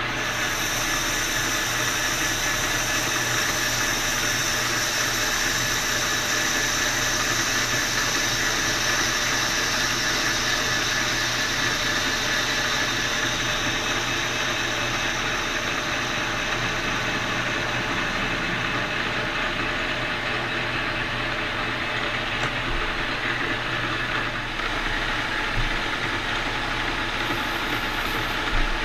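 Metal lathe running with its tool taking a facing cut across the end of a spinning bronze bushing: a steady machine noise with a high whine that eases about halfway through.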